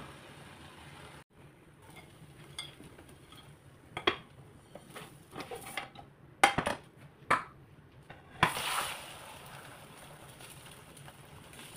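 Spatula knocking and scraping against a non-stick frying pan while a spinach omelette cooks: several sharp knocks a few seconds in, then a short rush of noise about eight and a half seconds in as the omelette is turned.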